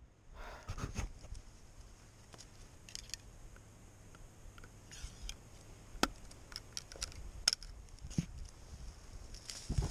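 Faint, scattered rustles, crunches and twig snaps of slow footsteps through dry leaf litter and brush. The sounds grow louder near the end.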